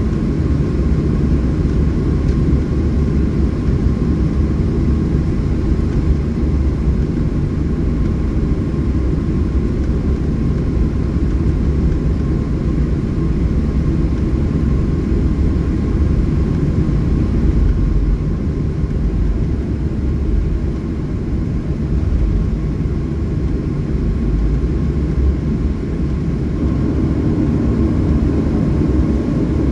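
Cabin noise of a Southwest Boeing 737 taxiing: a steady low rumble from the jet engines at low taxi thrust and the aircraft rolling along, with a faint steady whine above it.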